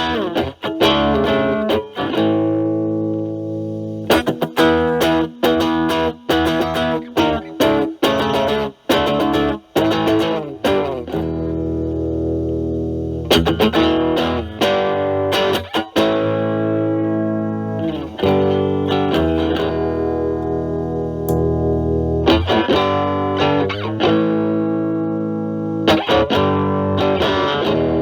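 Fender Stratocaster with single-coil alnico pickups played through a Metal Pedals Rawhide overdrive pedal, gain at about three o'clock, into a Marshall Valvestate amp's clean channel: overdriven picked riffs and chords, some left ringing for a second or two.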